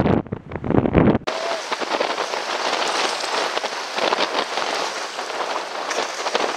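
Wind buffeting the microphone for about a second, then an abrupt change to a steady crackling hiss of splashing water as a kiteboard carves across choppy water, throwing spray.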